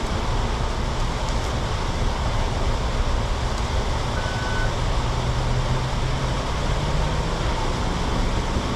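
Steady low rumble of an idling car with road traffic around it, and one short high beep about four seconds in.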